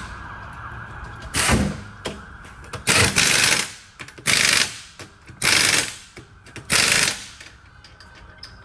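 Pneumatic impact wrench running in five short bursts, each about half a second to a second long, spinning lug nuts at a tire shop.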